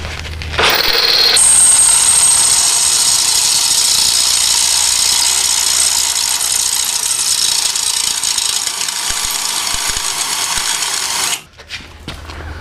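Cordless drill boring out a steel rivet in a truck frame bracket: it starts about half a second in, then runs steadily with a high-pitched whine of the bit cutting steel, and stops abruptly about a second before the end.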